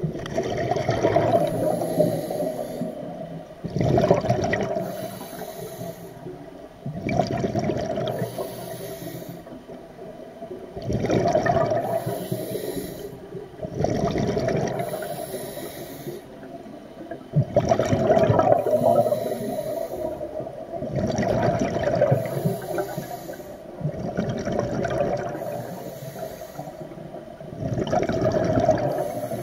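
Scuba diver breathing through a regulator underwater: about nine regular rushes of exhaled bubbles, roughly every three seconds, with a fainter high hiss of inhalation between them.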